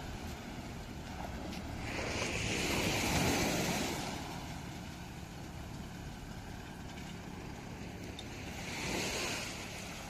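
Small sea waves washing in around the wheels of a pickup stuck in the surf, swelling up twice. A steady low engine hum runs underneath.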